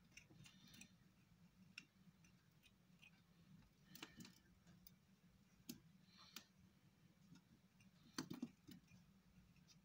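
Faint scattered ticks and rustles of peaty potting soil crumbling off a ficus ginseng root ball and dropping onto a plastic tray as the roots are teased apart, with a few louder clusters of ticks about four and eight seconds in.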